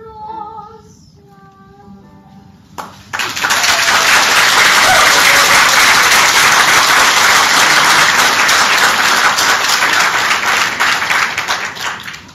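A child sings the last notes of a song, then an audience breaks into loud applause about three seconds in, dying away near the end.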